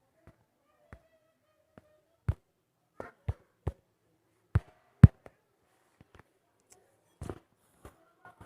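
Short knocks and taps of kitchen utensils as ground ginger paste is taken out into a separate bowl: about a dozen irregular knocks, the loudest about five seconds in.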